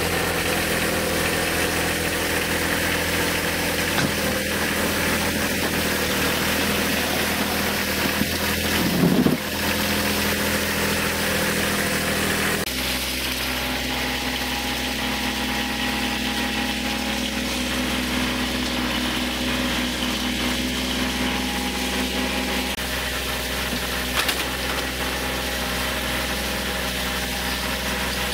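Kubota tractor's diesel engine running steadily at idle, with a brief louder surge about nine seconds in and a sudden change in engine note about thirteen seconds in.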